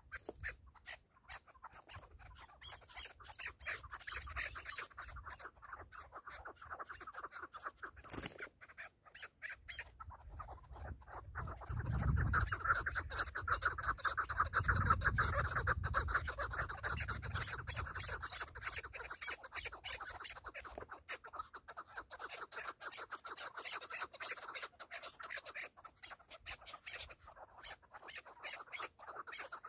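Chukar partridges calling: a continuous run of rapid chucking and cackling notes, louder for a few seconds in the middle with a low rumble underneath. A single sharp click about eight seconds in.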